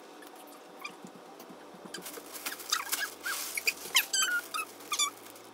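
Clear plastic bag around a plush toy crinkling and rustling as it is handled and opened, starting about two seconds in, with a few short high squeaks in the second half.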